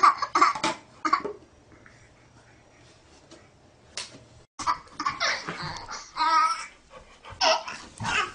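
A baby laughing in short bursts, then a quiet pause, then more bursts of laughing.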